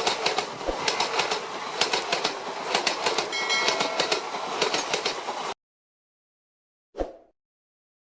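Train sound effect: a passing train's noisy rush with rapid wheel clicks, cutting off abruptly about five and a half seconds in. A short thud follows near the end.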